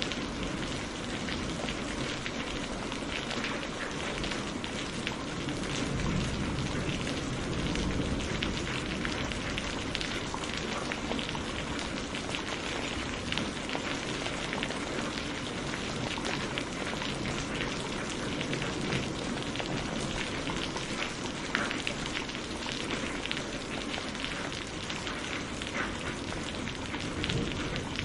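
Steady rain falling, a dense, even patter of many drops with no let-up.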